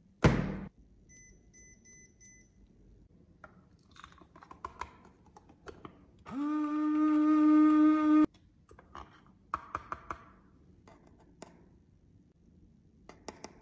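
A sharp thud, then four short electronic beeps from an appliance's control panel. Later comes a loud steady pitched tone, about two seconds long, that cuts off suddenly, among light clicks and taps of small objects being handled.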